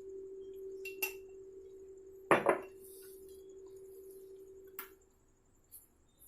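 A spoon clinking and knocking against a bowl a few times, the loudest knock about two seconds in. A faint steady hum underneath stops near the end.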